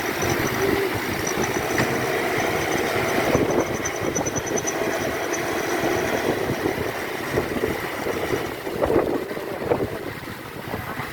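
Diesel dump truck engine running steadily under load, the truck straining to climb a slippery, rain-soaked slope.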